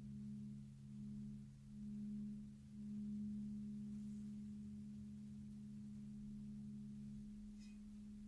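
Crystal singing bowls (Crystal Tones alchemy bowls) sounding together as two sustained low tones. The higher tone swells and fades in slow waves for the first few seconds, then holds steady. The lower tone fades out near the end.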